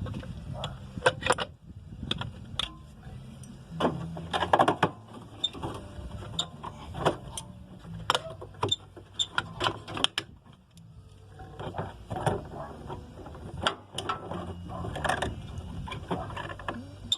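Irregular clicks and knocks of hands and tools handling parts while a drain pump is fitted to a Whirlpool washer.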